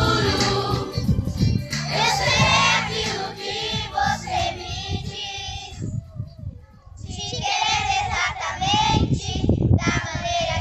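Children singing a song together with instrumental backing music, with a short break about six seconds in.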